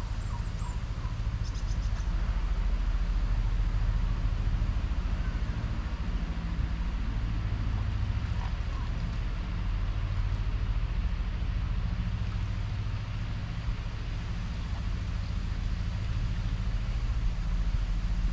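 Steady low outdoor rumble, with a few faint bird chirps near the start and again about eight seconds in.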